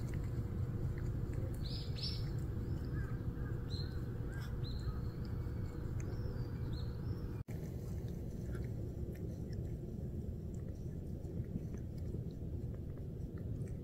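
Calico cat grooming, with soft wet licking and smacking sounds as it licks its paw and washes its face. Small birds chirp several times in the first half, over a steady low background rumble.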